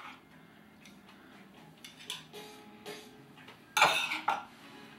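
A metal spoon tapping and clinking against a serving platter as salsa is spooned out: a few light taps, then a louder scrape and clink just before four seconds in.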